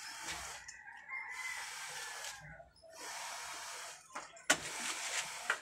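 A rooster crowing, three long harsh calls of about one to two seconds each in a row.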